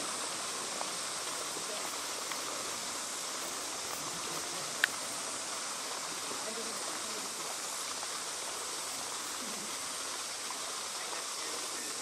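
Shallow mountain river flowing over a stony bed: a steady rush of water, with a single sharp click nearly five seconds in.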